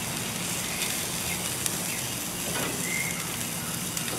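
Zucchini and carrot slices sizzling steadily on a hot outdoor grill, with a few light clicks of metal tongs against the grate. A bird chirps briefly, twice.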